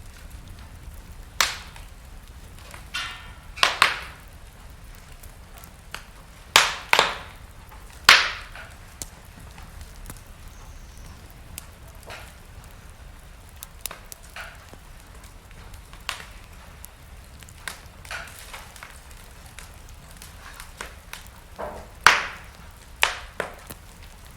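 Wood fire burning in a fireplace: a steady low hiss with sharp, irregular crackles and pops of burning logs, several of them loud.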